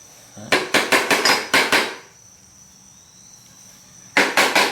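Rapid metallic tapping and clicking in two bursts, one of about a second and a half and a shorter one near the end. A small socket is being knocked against a hard surface to free a 2 BA nut stuck inside it.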